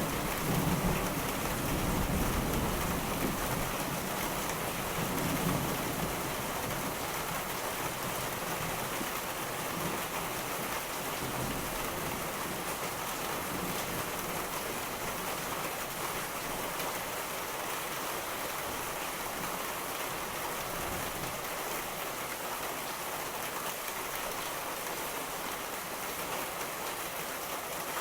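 Steady rain falling, with a low rumble of thunder over the first few seconds that dies away, leaving the even hiss of the rain.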